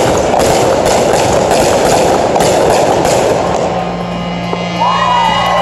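Fireworks crackling densely for the first three seconds or so as the shells' stars burn out. As the crackle dies away, steady music tones come through, and high tones that rise and fall start near the end.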